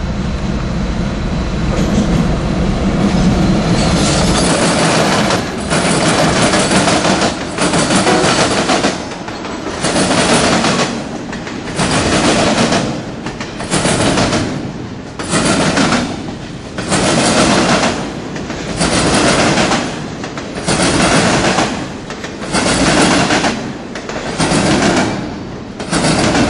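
Freight diesel locomotive rumbling past close by, then double-stack intermodal container cars rolling past with wheel and rail noise. The noise swells and drops again with each car, about every one and a half to two seconds.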